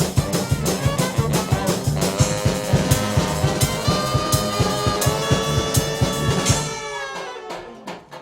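Brass band with drums playing a fast tune. About seven seconds in the drums stop and the horns hold a closing chord that dies away.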